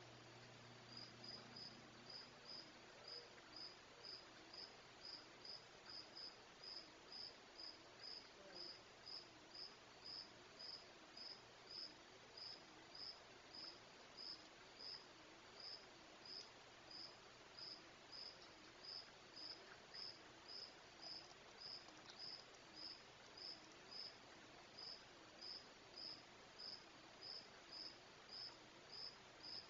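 Insect chirping at an even pace, about two short high-pitched chirps a second, faint over a quiet night-time background hiss.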